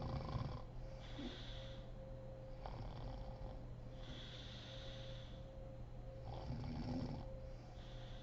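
A woman snoring in slow, regular breaths, about one every three and a half seconds, each rough snore followed by an airy, hissing breath.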